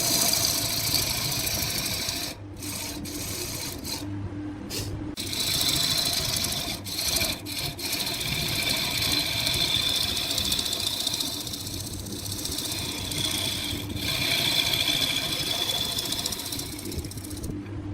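Wood lathe running while a turning tool cuts the spinning wood: a steady whirring motor hum under a hissing scrape, with a few brief breaks in the first five seconds.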